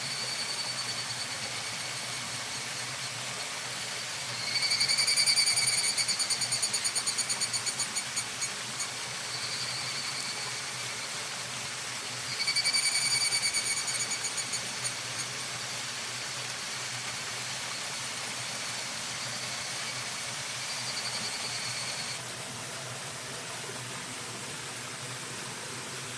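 Evening cicadas (higurashi) calling in rapid pulsing trills. A near one gives two phrases of about four seconds each that fade out as they go, and others answer more faintly, all over a steady hiss.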